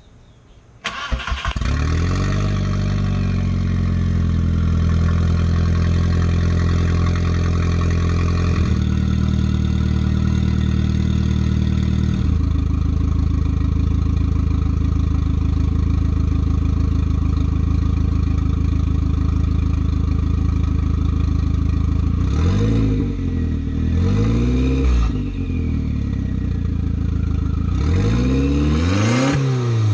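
VW 1.8T turbo four-cylinder engine starting and running with only the new downpipe fitted and no rest of the exhaust, so it is loud and open. It catches about a second in at a high idle that steps down twice as it settles. Near the end it is blipped, with a couple of quick revs and then one longer rev.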